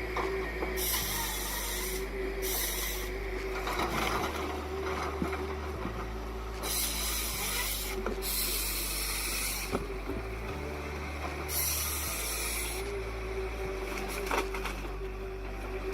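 Heavy timber-harvesting machine working on trees, its engine running with rubbing and rasping wood noise; the sound changes abruptly every one to two seconds.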